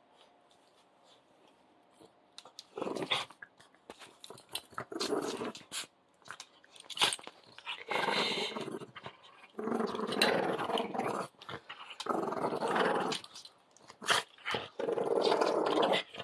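A Presa Canario puppy and a Boston Terrier growling at each other in play while tugging at a toy. The growls begin about three seconds in and come in repeated bouts of a second or so, with sharp clicks between them.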